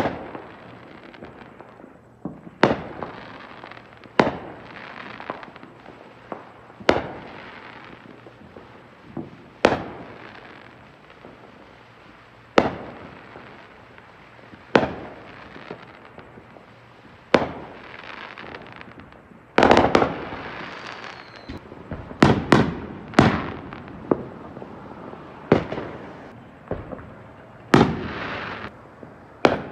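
Aerial fireworks bursting overhead: a sharp bang every two to three seconds, each trailing off, with a faster, louder cluster of bangs about twenty seconds in.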